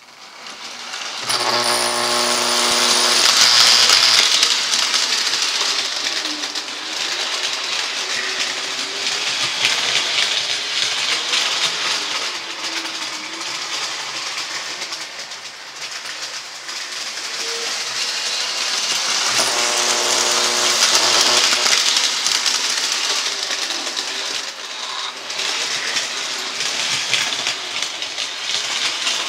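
Toy electric train running around a loop of three-rail tinplate track, clattering louder as it comes close, twice, about seventeen seconds apart. Each time it nears, a steady electrical buzz sounds for about two seconds: the semaphore's solenoid vibrating as the train trips the insulated rail.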